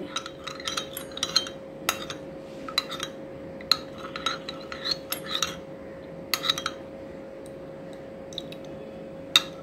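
Steel spoon stirring a thin flour-and-water slurry in a glass bowl: irregular light clinks and scrapes of metal on glass, thinning out after about six and a half seconds. A faint steady hum runs underneath.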